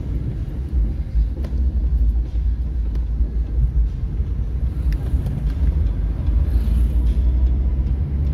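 Steady low rumble of a moving car heard from inside its cabin: engine and tyre noise at cruising speed.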